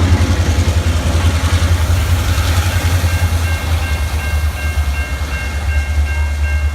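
A Norfolk Southern freight train rolling past with a deep rumble in heavy rain. About three seconds in, a bell starts ringing steadily, about two to three strikes a second.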